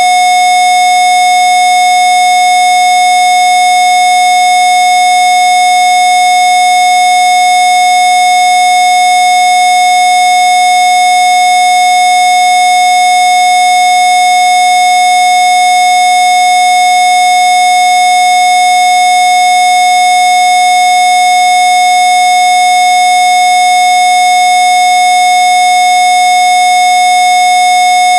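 Rife 'healing frequency' sine tone: a single steady, unbroken pure tone a little above 700 Hz, nearest the track's listed 727 Hz, with much fainter steady tones above and below it.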